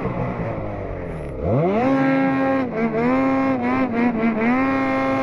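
Snowmobile engine at full throttle: about a second and a half in it revs up quickly from low to high speed, then holds there with a few brief dips as the sled runs.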